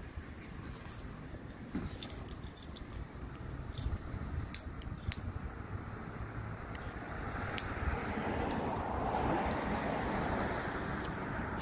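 Street traffic noise, with a passing car swelling louder over the last few seconds, and a few small sharp clicks earlier on.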